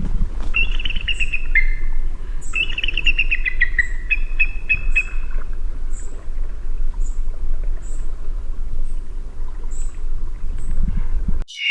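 Eagle calling: runs of high, quickly repeated chattering notes that fall in pitch, over a steady low rumble. Faint high ticks follow, and near the end the sound cuts abruptly to a louder, harsher scream.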